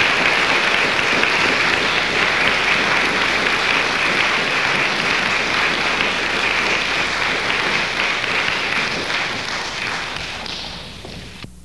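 Concert audience applauding after the song, steady at first, then fading near the end and cutting off abruptly; a live recording taken from audio cassette.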